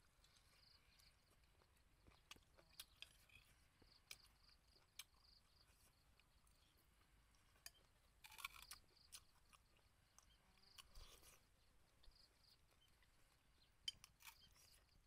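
Faint eating sounds: a person chewing, with scattered small clicks of a spoon against a ceramic bowl and a brief soft rustle twice. Very quiet overall.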